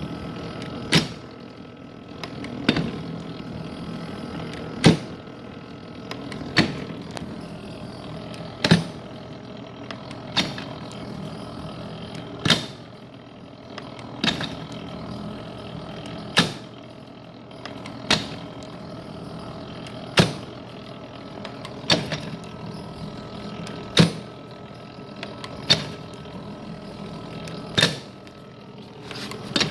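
Small vintage metal planer running, with a steady mechanical hum under a sharp clack about every two seconds as its table cycles back and forth.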